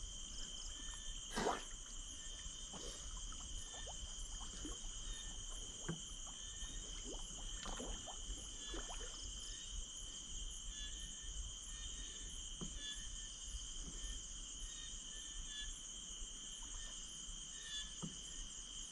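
A steady, high-pitched chorus of night insects such as crickets, with scattered faint clicks and knocks.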